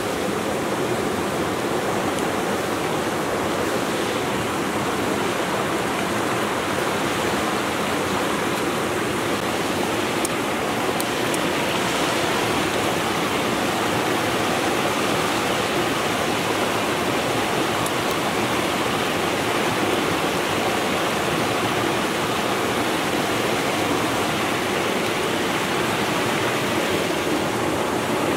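Waterfall and stream water rushing, an even, unbroken hiss, with a few faint clicks near the middle.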